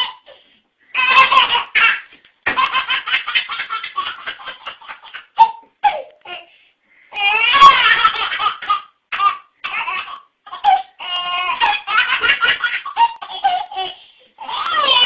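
A baby laughing hard in repeated bouts of quick, high-pitched giggles, with short pauses for breath between bouts.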